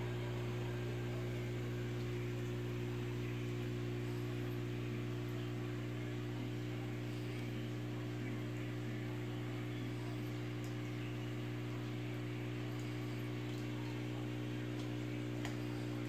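Steady hum of an aquarium air pump, with a faint even wash of bubbling water from the air stones.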